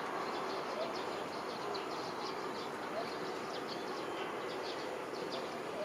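Sumitomo SH125 hydraulic excavator's diesel engine running steadily as the machine works, a constant even noise with many short high chirps over it.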